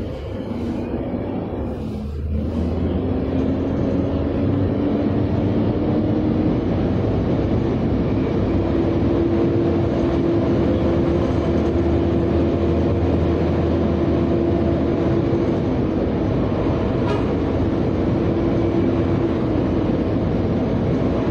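City bus running, heard from inside: a steady engine and drivetrain rumble with a whine that rises as the bus picks up speed, holds, then drops near the end as it eases off.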